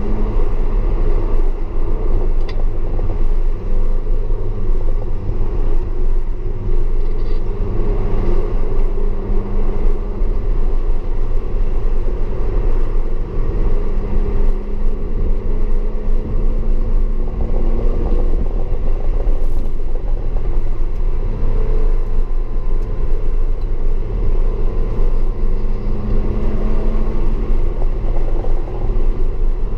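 Audi S4 engine running hard over a heavy, steady low rumble, its note climbing and dropping several times with throttle and gear changes.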